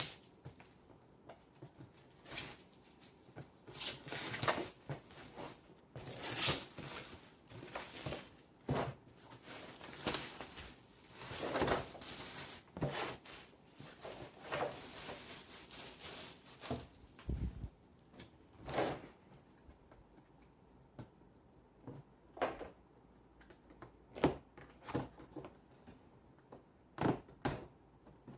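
A cardboard box and its packing being handled and opened by hand: a run of irregular scrapes, rustles and light thumps.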